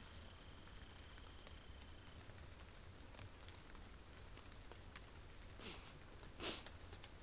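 Near silence with a low room hum, then two short sniffs near the end: a person sniffling while holding back tears.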